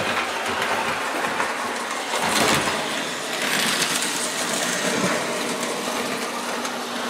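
Lionel 1930s-era tinplate electric toy locomotive running on three-rail track: a steady motor whir with the wheels clattering and clicking over the rails. Its gears have a slight grind.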